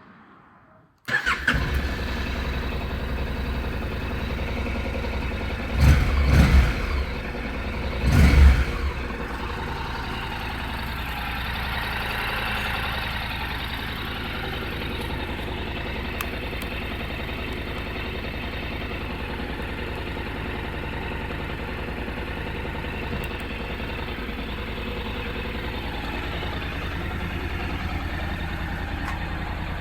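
Honda NC700S's 670 cc parallel-twin engine, on its stock exhaust, starting about a second in and settling into a steady idle. It is blipped twice, briefly, a few seconds later, then idles on.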